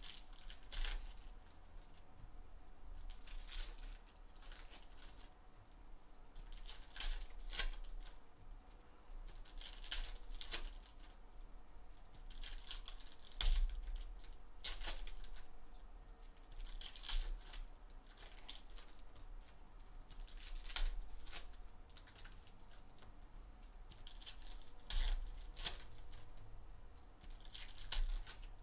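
Foil trading-card packs being torn open one after another, the wrappers crinkling, in short bursts every few seconds.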